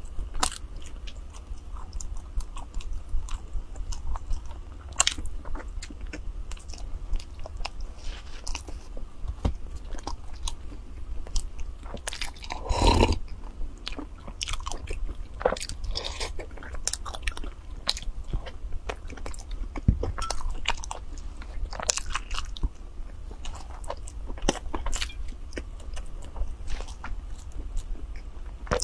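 Close-miked eating of soft bread: many small wet clicks of biting and chewing, with one longer, louder mouth sound about halfway through, over a low steady hum.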